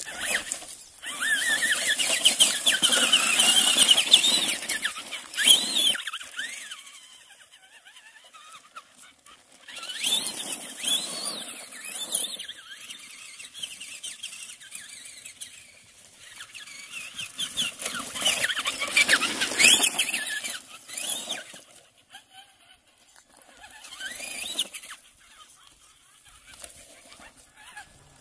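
Traxxas Rustler XL-5 RC truck's brushed electric motor whining in several bursts of throttle, the pitch rising and falling as it speeds up and slows, with the tyres churning on loose gravel.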